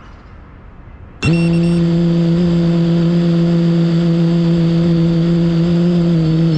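FPV quadcopter's brushless motors starting abruptly about a second in and spinning at a steady idle with a clear, even pitch: the drone has just been armed on the ground.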